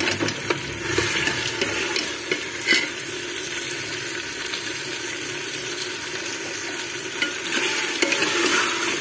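Mutton pieces sizzling in hot oil and spices in a pressure cooker pot while a steel ladle stirs them, with a few clicks and scrapes of the ladle against the pot. This is the browning (bhuna) stage, with the meat being fried well in the oil and masala.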